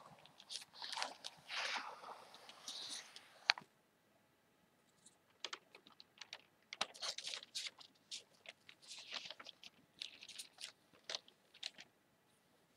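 Newspaper pages rustling and crinkling under hands that turn, fold and smooth them, in quick crisp crackles. There is a sharp snap of paper about three and a half seconds in, then a short lull before the crackling starts again.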